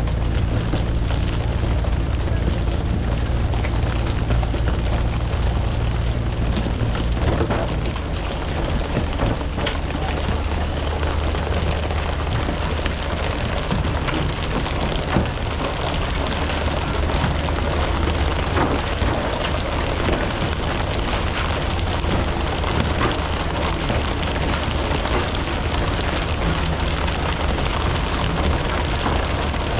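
A fishing boat's engine running steadily, its low drone changing pitch about eight seconds in, under a constant hiss of water and wind.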